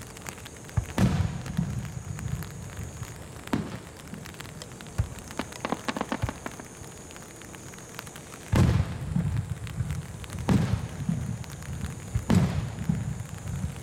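Aerial firework shells bursting: five booms, each followed by a low rumble, the loudest about eight and a half seconds in, with a quick run of crackles around six seconds in. Rain patters on an umbrella held over the microphone.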